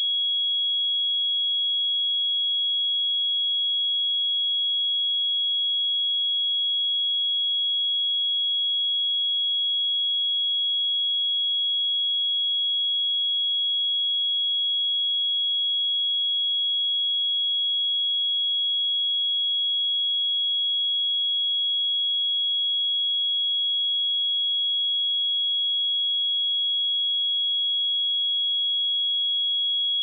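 Pure 3327 Hz sine-wave test tone: a single steady, high-pitched tone held at a constant level with no other sound.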